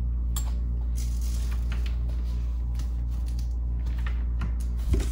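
Steady low hum at an even level, with faint light rustles and clicks over it and a short soft knock near the end.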